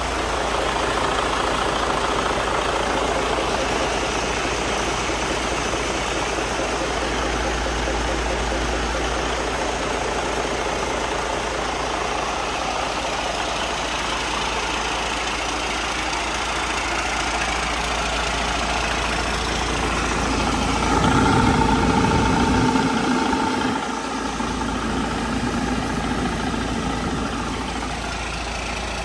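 2017 Detroit Diesel DD15 14.8-litre inline-six diesel engine running at idle, steady, with a short spell of louder running about three quarters of the way through.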